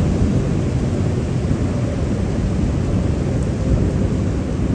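Wind buffeting the microphone: a steady, dense low rumble with no distinct events.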